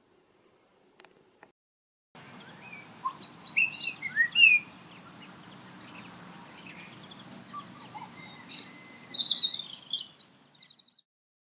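Birdsong: a string of short chirps and whistles over a steady outdoor background, starting suddenly about two seconds in, busiest near the start and again near the end, then cutting off.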